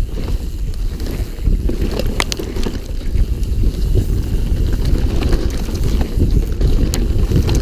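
Mountain bike riding fast down a dirt forest trail, heard from a body-mounted action camera: wind buffeting the microphone and tyre rumble make a loud, steady low rumble. Two sharp clicks from the bike come about two seconds in and near the end.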